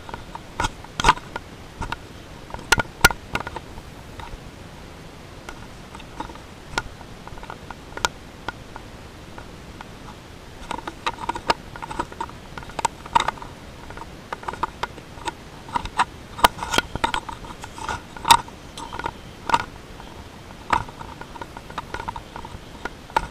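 Irregular clicks and light knocks of a hand-carried camera rattling in its housing or mount as it is walked along, over a steady low hall background.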